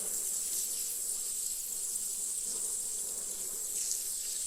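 Honeybees buzzing in and around an opened hive, a steady hum with no breaks, with a steady high-pitched whine above it.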